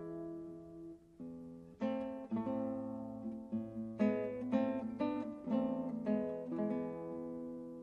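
Background music of acoustic guitar: plucked notes and chords, about two a second.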